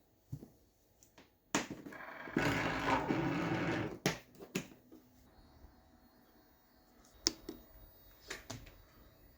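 Bambu Lab P1S 3D printer's motors running in a burst of about two and a half seconds, then a few sharp clicks.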